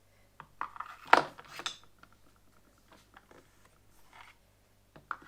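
Small metal screwdriver bits and their plastic holder clicking and clattering as they are handled, loudest about a second in, then a few lighter ticks.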